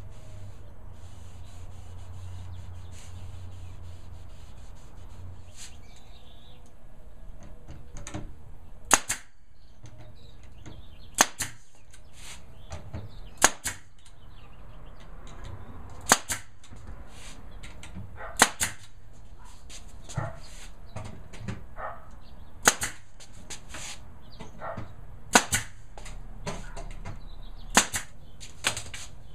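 Pneumatic nail gun firing nails one at a time into a thin back panel on a cabinet box, a sharp crack every two to three seconds, about nine shots, starting about nine seconds in. Several shots are followed by a smaller second click.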